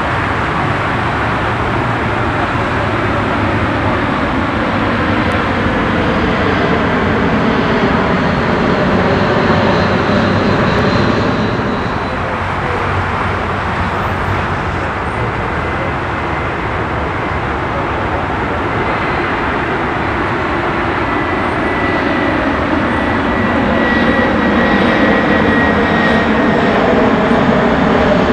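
Jet engines of landing airliners passing low overhead one after the other. The first, an Airbus A320, moves away with its engine tones dropping in pitch. Then an Airbus A319 comes in with a high whine that grows louder, and its pitch falls as it passes overhead near the end.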